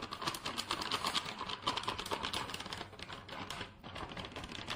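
Refined flour (maida) pouring from a plastic packet into a stainless steel bowl, the packet crinkling in the hand: a dense, rapid crackle.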